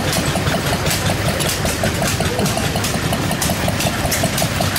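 Belt-driven model threshing machine (grain separator) running steadily, with a rapid, even mechanical ticking over a continuous low rumble.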